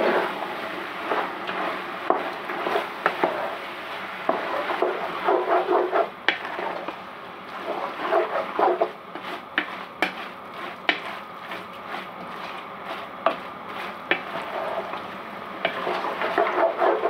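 A spatula stirring minced chicken keema as it fries in a metal pot: irregular scraping against the pan with occasional sharp knocks, over the sizzle of the frying meat.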